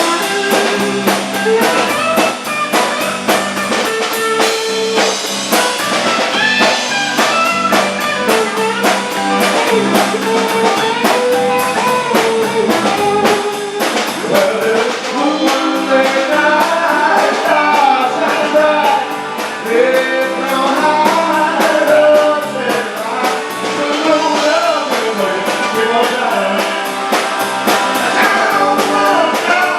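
Live rock-and-roll band playing an instrumental passage, with electric guitar over a steady drum-kit beat.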